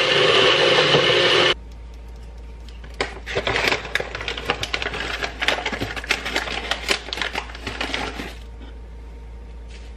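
A single-serve cup blender blending a smoothie stops abruptly about a second and a half in. After a short pause, a crinkly snack packet is handled and opened, crackling irregularly for about five seconds.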